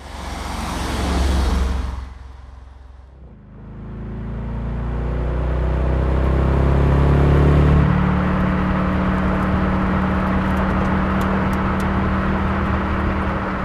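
Audi RS5's 4.2-litre V8 engine: a car sweeps past in the first two seconds, then the engine note climbs steadily as the car accelerates toward the listener and holds a steady pitch from about eight seconds in.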